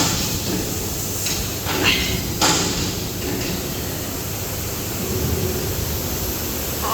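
Maxi-roll paper towel band saw cutting machine running: a steady mechanical hum with a few sharp clacks in the first two and a half seconds.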